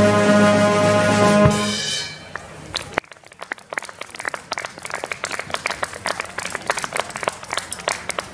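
Concert band of brass and woodwinds holding the final chord of a polka, which ends with a low thump about one and a half seconds in and dies away. Scattered hand-clapping from a small audience follows, with the claps heard one by one.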